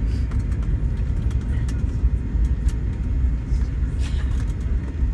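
Airliner cabin noise while taxiing: a steady low rumble from the engines and rolling wheels, with scattered light clicks and rattles.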